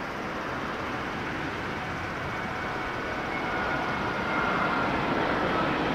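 Airbus A380's four Rolls-Royce Trent 900 jet engines on final approach, a broad rush of noise with a faint high whine, slowly growing louder as the airliner draws near.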